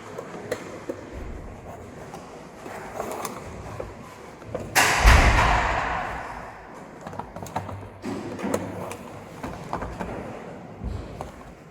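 Handling noises: scattered knocks and clicks, with one louder thud and rustle about five seconds in that fades over a second or so.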